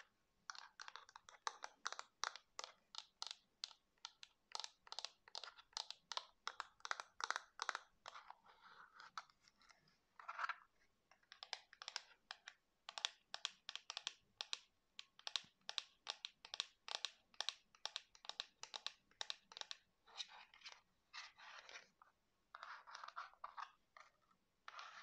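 Fingernails tapping quickly on a flat black hard object, about four taps a second, with brief pauses and a few short spells of scratching and rubbing near the middle and near the end.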